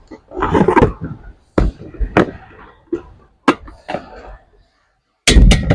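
An electric kettle and its base being handled: a string of sharp knocks and clicks, about one every half second, with a louder cluster of knocks near the end.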